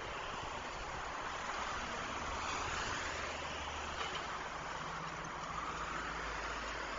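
Road traffic on a city highway: steady tyre noise of passing vehicles that swells as cars go by, with a low engine hum from a passing vehicle about two seconds in.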